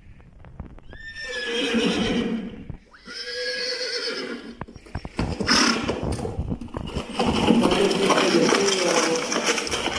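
Recorded horse sound effect played from a laptop: a horse whinnies twice, about a second in and again near three seconds, then hoofbeats clatter for the second half.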